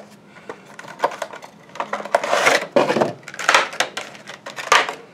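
A small cardboard collectible-figure box being opened by hand and a Funko Dorbz vinyl figure taken out of its packaging: a run of clicks, scrapes and rustles, with several louder rustling bursts.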